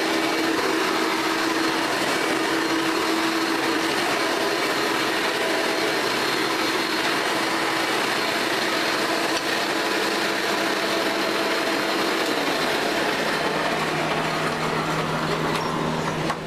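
A 1986–87 Hoover Elite bagged upright vacuum cleaner running steadily: a motor whine over a rush of air. About twelve seconds in, its tone shifts lower.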